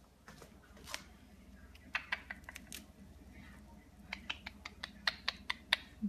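Quick, sharp clicks and taps from a caique hanging and clambering on a bag strap. A short run comes about two seconds in, and a faster run of about a dozen follows in the second half.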